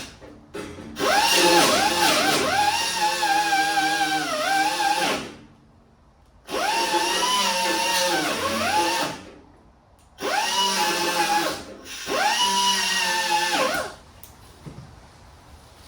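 A small handheld power tool grinding metal, run in four bursts of a few seconds each, its whine sagging in pitch as it is pressed against the work and recovering as it eases off: sanding surface rust out of holes in a car door panel.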